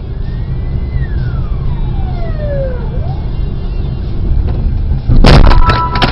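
Car dashcam audio with a steady engine and road rumble and a single tone that glides down in pitch. About five seconds in comes a sudden loud crash of several sharp impacts, a vehicle collision.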